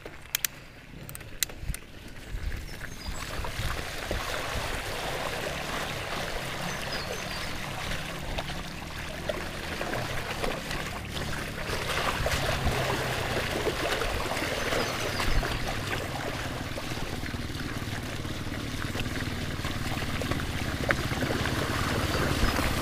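Engines of several trail motorbikes approaching along a flooded track, growing louder towards the end, over a steady watery rush.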